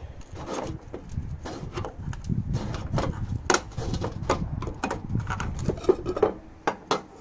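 Screwdriver prying the lid off a metal paint tin: irregular scraping and sharp clicks of metal on metal as the blade is levered around the rim.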